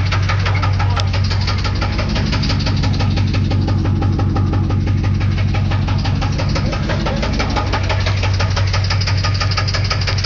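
Chevrolet 350 TPI small-block V8 running at idle with a fast, even knocking, which the owner calls knocking bad and cannot place.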